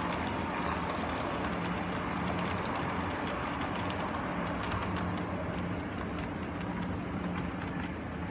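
LGB garden-scale model train with log wagons running past on its track: a steady hum from the running gear and wheels, with light ticks.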